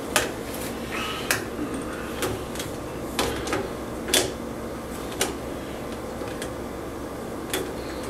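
Irregular clinks and taps of glass bong pieces knocking against the wire rack of a countertop dishwasher as they are fitted in: about nine sharp knocks spread unevenly, over a faint steady hum.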